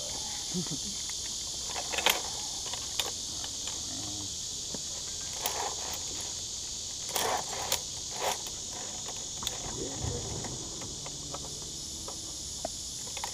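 Steady high-pitched insect chorus from the surrounding woods, with scattered clicks of harness gear being handled.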